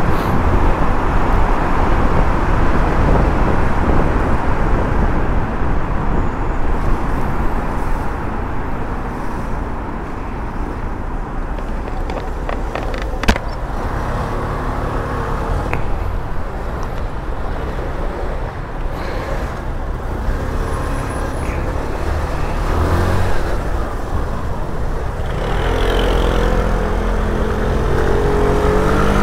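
Riding a scooter in traffic: wind rushes over the microphone at speed, then eases as the scooter slows among cars. There is a sharp click about thirteen seconds in. Near the end the scooter's engine picks up again, accelerating.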